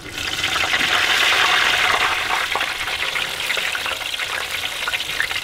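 Floured crappie fillets going into hot oil in an electric deep fryer: the oil bursts into a loud sizzle with many fine crackles all at once, then carries on steadily, easing a little.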